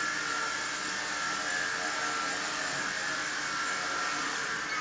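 Helimax Novus CP micro electric RC helicopter in flight: steady whine of its motor and spinning rotor blades, its pitch dropping a little near the end.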